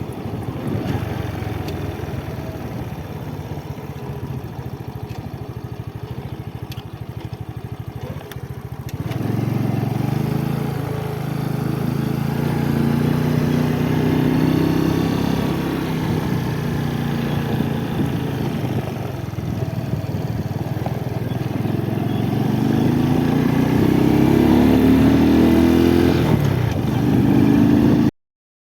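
Motorcycle engine running under way, getting louder about nine seconds in, its pitch rising and dropping as it goes through the gears, and climbing again near the end before the sound cuts off abruptly.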